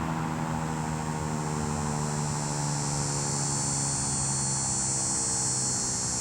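Federal Signal 2001-130 electromechanical warning siren winding down, its tone slowly sinking in pitch over a rushing hiss of air, the low tone fading out near the end.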